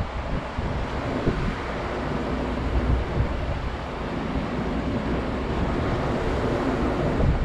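Wind buffeting the microphone over the steady wash of small waves breaking in the surf.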